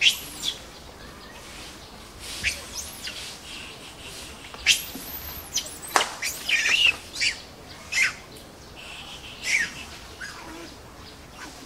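An irregular series of about a dozen short, high-pitched animal calls and chirps, some coming in quick clusters, over a faint steady outdoor background.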